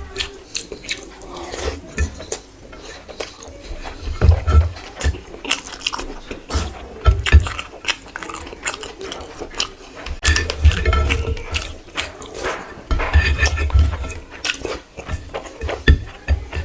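Close-miked eating sounds of a meal of rice and curry: chewing and biting, with frequent clicks and knocks of dishes.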